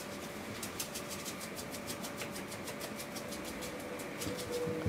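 Puppy scratching at an itchy new collar: faint runs of quick scratching clicks, several a second, over a faint steady hum.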